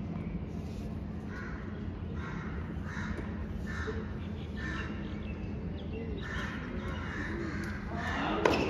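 Crows cawing repeatedly, several calls a second apart, over a steady low hum, with a sharp knock just before the end.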